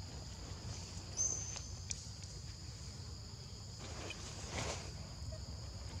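Steady high insect drone over a low outdoor rumble, with a short high chirp about a second in and some faint rustling near the middle.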